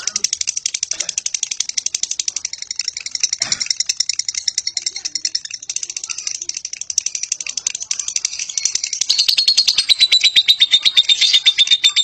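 Fischer's lovebird giving a long ngekek: an unbroken chattering trill of very rapid, high-pitched notes, which grows louder about three quarters of the way through.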